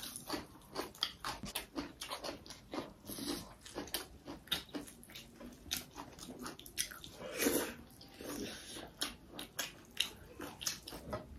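A person chewing and biting food close to the microphone: irregular clicks and crunches, several a second.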